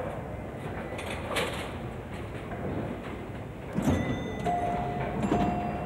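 Bowling alley and arcade noise: a steady rolling rumble with a few knocks, then, from about four and a half seconds in, two short held tones from a pinball machine.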